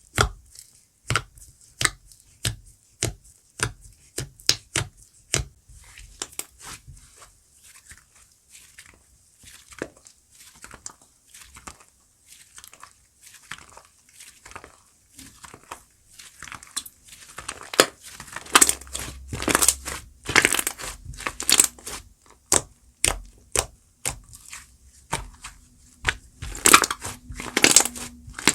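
Crunchy chestnut-crumble slime being pressed and squeezed by hand, giving sharp crackles and pops. They come about one or two a second at first, then in louder, denser clusters from about two-thirds of the way through.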